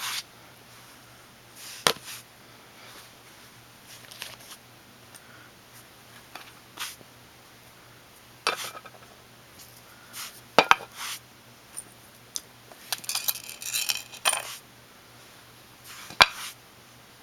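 Pocket knives, a multi-tool and other small metal carry gear being set down on a table one after another: scattered clicks and clinks of metal on a hard surface, with a busier run of clatter about three quarters of the way in.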